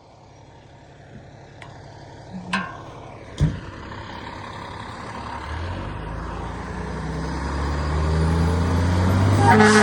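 A fire truck's engine runs and revs up, its pitch climbing as it grows steadily louder, after a few sharp clicks and a thump early on. Near the end the truck's air horn begins to blast with a loud steady tone.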